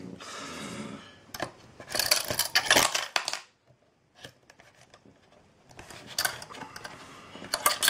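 Screwdriver prying at the seam of a plastic external hard-drive enclosure: a scrape, then a dense run of sharp cracks and clicks about two seconds in as the case's clips give, and more clicking near the end.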